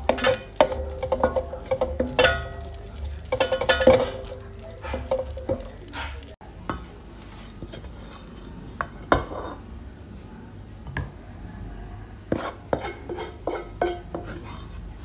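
A wooden spatula scraping and knocking against a stainless steel wok while stir-frying egg fried rice, a faint ringing from the wok under the strokes. It cuts off about six seconds in, and sparser knocks and clinks follow, with a run of them near the end as the rice is served into a ceramic bowl.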